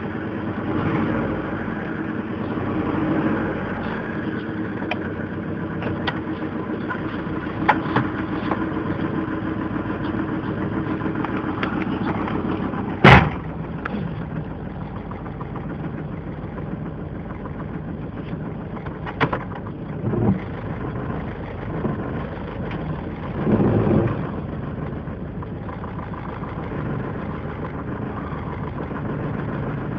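1998 Mazda Protege's four-cylinder engine running steadily with a knock, the fault the engine has. One sharp, loud snap comes about midway, and a few brief louder swells follow later.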